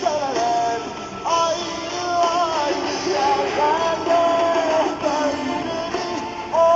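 Background music with a singing voice and guitar.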